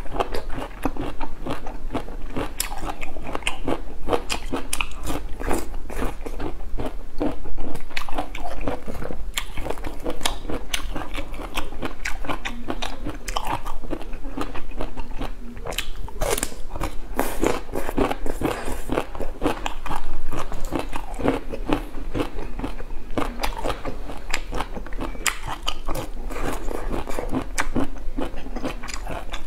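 A person biting and chewing pieces of bamboo shoot, a dense run of crisp crunches throughout.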